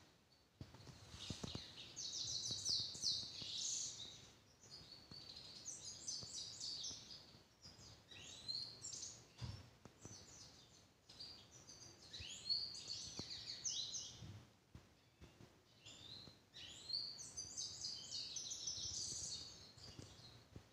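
Caged grey-headed goldfinch singing: several long phrases of rapid, high notes, separated by short pauses.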